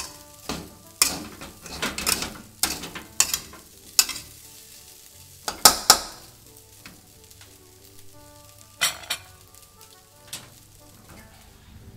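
Metal spatula scraping and clanking against a steel wok as fried rice is stirred and tossed, with the rice sizzling. Quick strokes come one after another through the first half, then thin out to a couple of single scrapes near the end.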